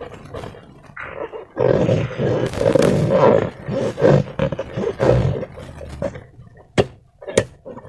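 Slime being squeezed and squished, a loud raspy squelching that runs for several seconds, then two sharp clicks near the end.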